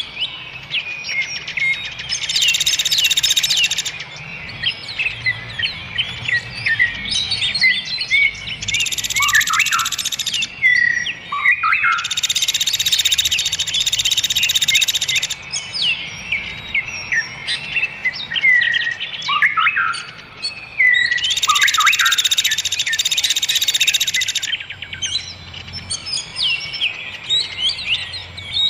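Songbirds chirping and whistling in a dense, continuous chorus, with repeated stretches of fast, high trilling lasting two to three seconds each, as on a songbird tutoring (masteran) recording.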